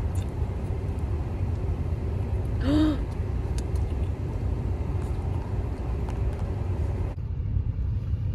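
Low, steady rumble of a car running, heard inside the cabin, with one short sound from a person's voice about three seconds in.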